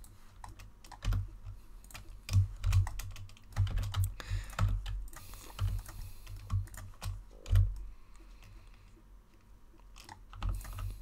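Computer keyboard keys tapped in short irregular clusters: shortcut keystrokes, each a sharp click with a dull thud, with a quieter stretch of about two seconds near the end.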